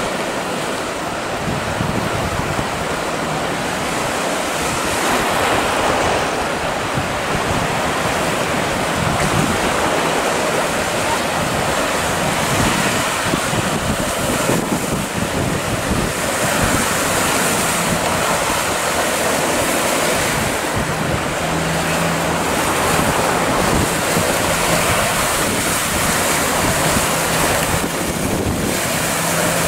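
Choppy sea and breaking surf with steady wind buffeting the microphone. Under it, a small cabin motorboat's outboard motor hums faintly, more noticeable in the second half as the boat comes closer.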